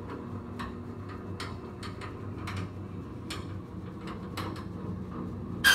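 Irregular light clicks and knocks from chiropractic decompression equipment being set up, over a steady low hum. Near the end comes one loud, brief, high-pitched squeak.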